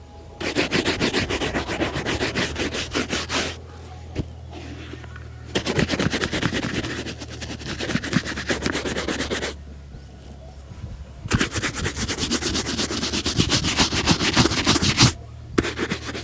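A shoe being polished by hand with rapid back-and-forth rubbing strokes, in three bouts of a few seconds each with short pauses between them.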